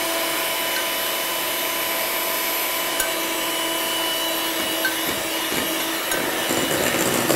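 Electric hand mixer running steadily with a constant motor whine, its twin beaters working cake batter as flour is spooned in.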